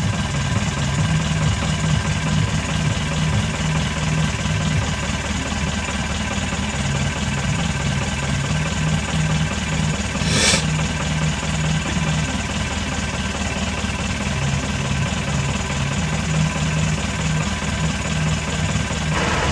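A vehicle engine idling steadily with a low, pulsing hum, heard from inside the cabin. A brief sharp noise sounds about halfway through.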